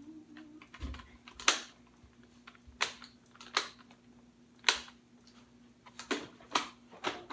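About half a dozen sharp plastic clicks and clacks, roughly a second apart, from a toy Nerf blaster being worked in the hands without firing; it will not shoot because it has not been cocked. A faint steady hum runs underneath.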